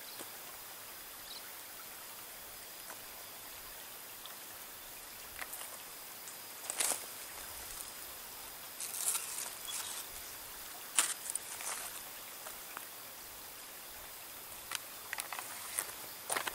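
Short rustles and crackles of leaves, scattered several times from about seven seconds in, over a steady faint outdoor hiss.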